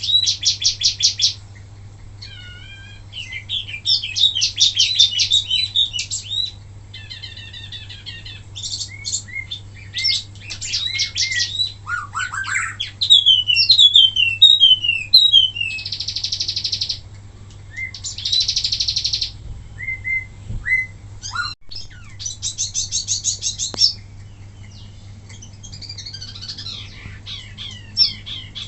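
A wambi mini songbird singing a varied song: bursts of fast, high trills and buzzy rattles, and runs of quick whistled slurs, many of them falling, with short pauses between phrases. A steady low hum runs underneath.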